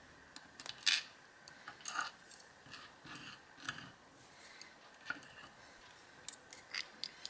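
Steel tweezers and small lock pins clicking against the metal lock cylinder and a wooden pin tray as the pins are pulled out and set down: a scatter of light metallic ticks and clicks, loudest about a second in and again around two seconds.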